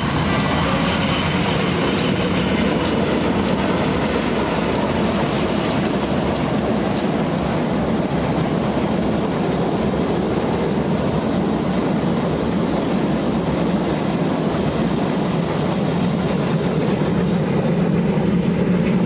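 Diesel-hauled passenger train passing at speed: a steady rolling rumble with the wheels clicking over the rail joints, the clicks thickest in the first half as the locomotive and leading coaches go by.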